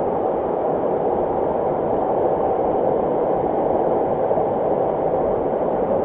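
Waterfall: water rushing steadily, an even, continuous noise.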